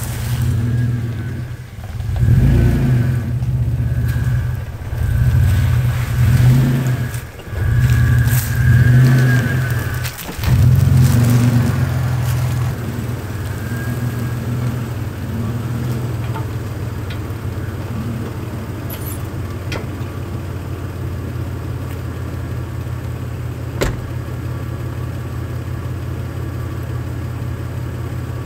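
1998 Toyota Tacoma pickup's engine pulling in at low speed, rising and falling repeatedly as it is driven onto the campsite and maneuvered, then settling into a steady, quieter run about twelve seconds in. One sharp click about twenty-four seconds in.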